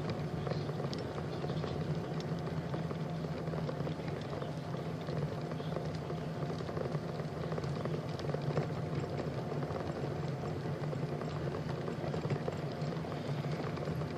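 Steady rumbling noise of a ride on a paved bike trail: tyres rolling, with a low steady hum and no breaks.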